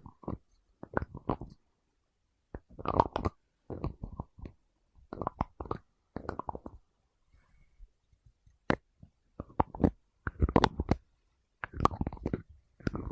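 Close-up ASMR tapping and knocking on an object: quick clusters of taps, each about half a second long, coming every second or two with short pauses between.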